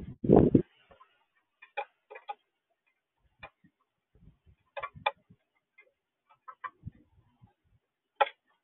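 Mourning dove pecking at a seed cake at the feeder, its beak making irregular sharp taps and clicks close to the microphone. A louder cluster of knocks and scraping comes at the very start.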